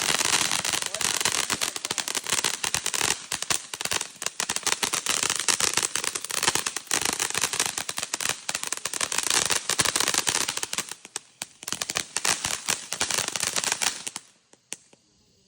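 Fireworks crackling: a dense, rapid run of sharp cracks for about fourteen seconds, thinning out near the end and then stopping.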